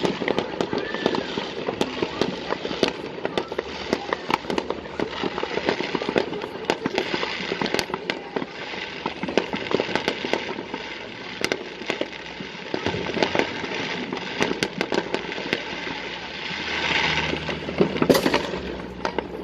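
Fireworks display: a dense, unbroken run of crackling pops and bangs, with a louder burst near the end.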